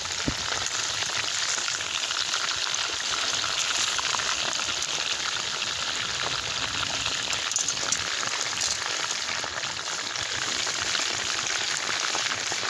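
Chicken wings deep-frying in hot oil in a cast iron skillet: a steady crackling sizzle of bubbling oil.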